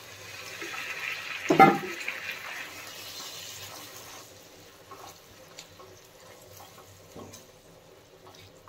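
Hot water poured from a glass into masala paste frying in a non-stick pan: a hissing, splashing pour for about four seconds, with a brief louder knock about a second and a half in. Then a faint sizzle with a few soft clicks as the gravy is stirred.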